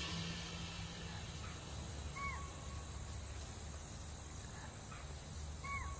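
Grassland ambience: a high insect chorus that pulses on and off every second or so, with a short bird call about two seconds in and again near the end.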